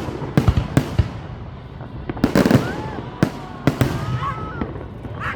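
Fireworks shells bursting overhead in a rapid string of sharp bangs, the densest cluster about halfway through.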